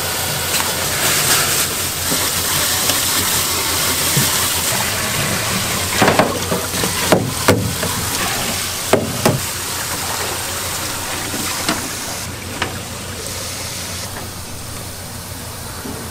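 Water running steadily, as from a tap filling a pot or basin, with a few sharp knocks of cookware about six to nine seconds in.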